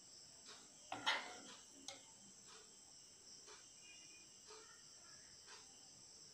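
A spoon knocks sharply once about a second in as thick mango kulfi mixture is spooned into clay cups, with a couple of lighter taps around it. Under it runs a faint steady high hiss with soft ticks about once a second.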